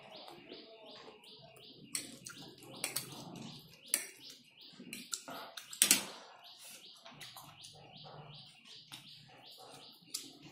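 Eating sounds of spicy instant noodles: slurping and chewing, with a few sharp clinks of fork and spoon against the plate, the loudest about six seconds in. A small bird chirps over and over in the background.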